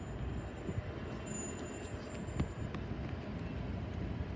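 Steady low rumble of a passenger train moving away down the line into the distance.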